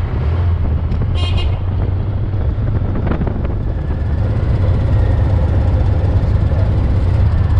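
Honda Gold Wing motorcycle engine running with a steady low rumble, slowly growing louder. A short high chirp about a second in.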